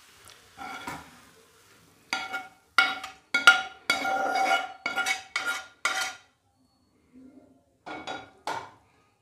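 A metal spoon scraping cooked vegetables out of a frying pan and knocking against the pan and a stainless steel bowl, each stroke ringing briefly. There are about eight strokes in quick succession, then two more near the end.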